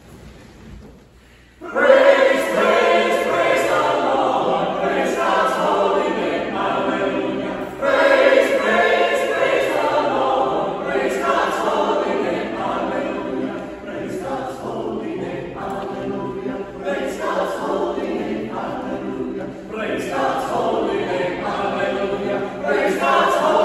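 Mixed church choir singing together; the singing starts suddenly about two seconds in and runs on in long phrases.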